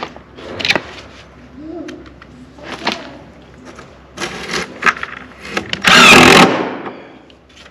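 A cordless drill runs in one short, loud burst about six seconds in, lasting about half a second. Before it come scattered clicks and knocks of the tool and gravel being handled.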